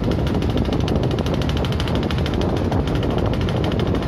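Boat engine running steadily with a fast, even pulse, heard from on board.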